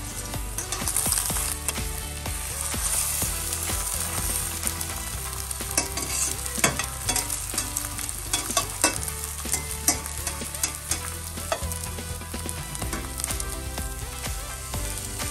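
Eggs, green onion and tortilla pieces sizzling in a stainless steel frying pan, with a metal spatula clicking and scraping against the pan in a cluster of sharp knocks about six to ten seconds in.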